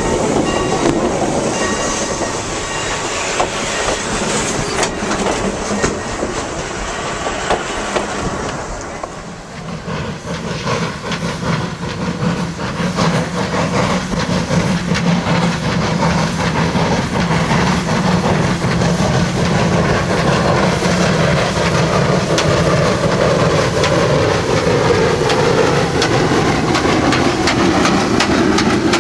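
Train wheels clattering over the rails aboard a moving train hauled by the 4-4-0 steam locomotive 'Leviathan'. After a break about nine seconds in, a small saddle-tank steam locomotive approaches with freight cars, its running noise growing louder as it draws near.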